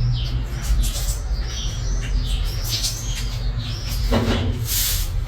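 Small birds chirping repeatedly in short, arched calls, over a steady low rumble.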